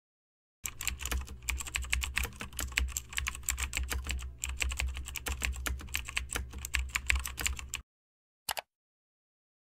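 Fast typing on a computer keyboard, a quick run of key clicks with a brief pause about halfway. A single key press follows about a second after the run stops.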